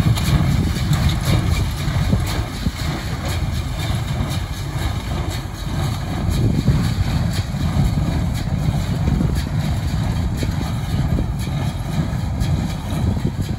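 Tractor engine running steadily as it pulls a small square hay baler through a field, with light, irregular knocks from the baler working.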